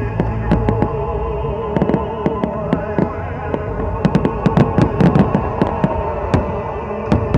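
Fireworks bursting and crackling in quick succession, densest about four to five seconds in, over music playing along with the show.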